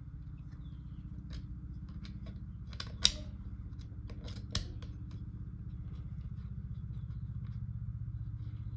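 Small metal clicks and taps as a router collet nut is fitted over the collet and spring and threaded onto the spindle by hand, the sharpest click about three seconds in and another at about four and a half seconds, over a steady low hum.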